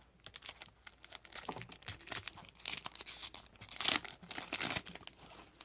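Cardboard trading cards being handled and slid off a stack: an irregular, papery rustling with many small clicks.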